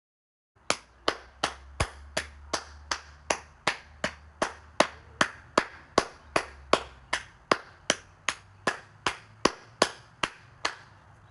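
A steady run of about two dozen sharp slaps, roughly two and a half a second: a spanking. The slaps start and stop abruptly out of dead silence.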